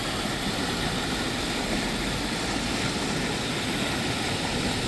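Rain-swollen mountain creek rushing over rapids: a steady, unbroken rush of water running high after heavy rainfall.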